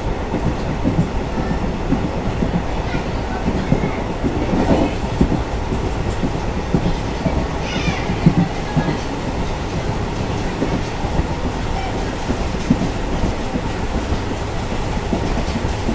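Passenger train's ICF coaches running along the track: a steady rumble with an irregular clatter of wheels over rail joints.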